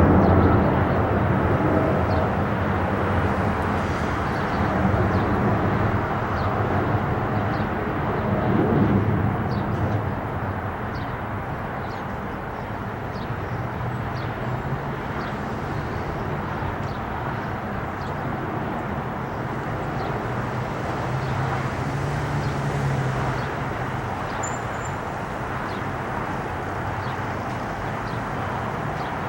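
Boeing 777 jet engines rumbling during takeoff, loudest at first and fading over the first ten seconds or so as the airliner moves away, then a steady lower rumble.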